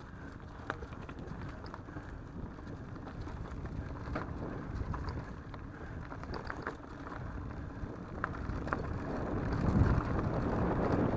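Mountain bike riding over a dirt forest trail: steady tyre rumble with scattered clicks and rattles from the bike, and wind on the microphone. It gets louder near the end.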